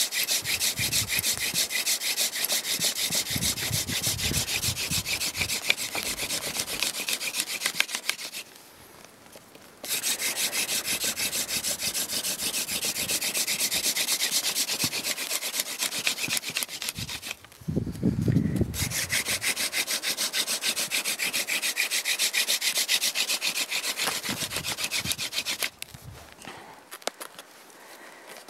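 A yucca hand-drill spindle is twirled fast between the palms on an eastern white cedar hearth board, grinding and rubbing continuously as friction fire-making works toward an ember. The rubbing breaks off briefly three times: about nine, seventeen and twenty-six seconds in.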